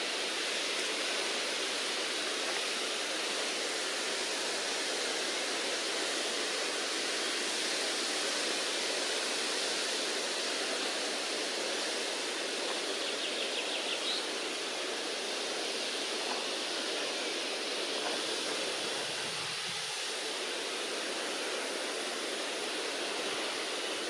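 Steady rushing noise of running water, with a brief faint high chirp about halfway through.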